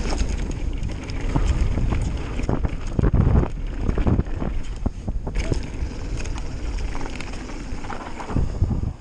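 Mountain bike descending fast on a dirt trail, with wind buffeting the camera microphone and repeated knocks and rattles from the bike over bumps. The noise drops away suddenly at the end.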